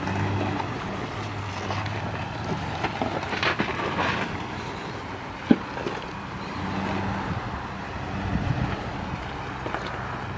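Toyota FJ Cruiser's 4.0-litre V6 running at a low, steady crawl as the truck climbs a rocky track, tyres crunching over loose stones, with one sharp knock about five and a half seconds in.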